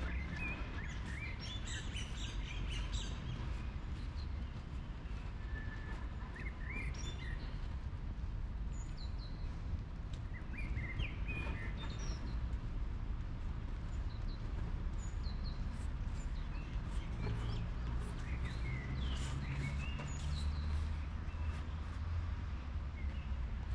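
Songbirds chirping and calling, short scattered notes throughout, over a steady low rumble.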